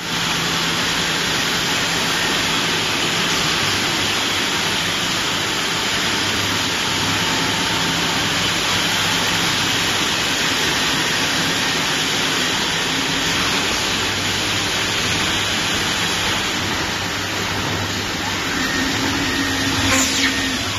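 Steady running noise of CNC lathes with automatic bar feeders: an even hiss over a low hum. A short sharp knock near the end.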